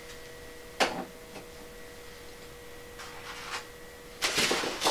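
Hand handling noise from eggs being set into a Little Giant incubator: a steady low hum underneath, one sharp click about a second in, a few soft taps, then a loud burst of rustling and clattering near the end.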